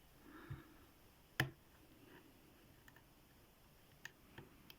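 Faint clicks from a lock pick and tension wrench working the pins of a cast-iron Tri-Circle padlock, where the picker feels he has overset a pin. There is one sharper click about a second and a half in and a few light ticks near the end.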